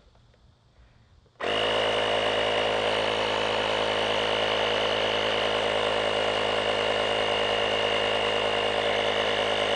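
Hyper Tough portable tire-inflator air compressor switching on about a second and a half in and running steadily with a buzzing motor drone, pumping air into a sealed PVC pipe tank to pressurize it.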